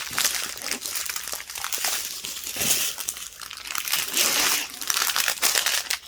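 Small plastic bags of diamond-painting drills crinkling and crackling as they are handled one after another.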